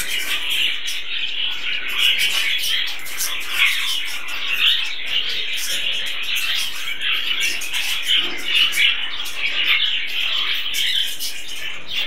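A flock of budgerigars chattering and chirping, many birds at once in a steady, dense warble.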